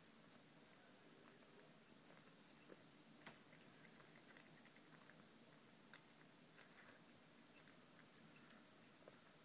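Cat eating tuna from a bowl: faint, wet chewing and licking with irregular small clicks.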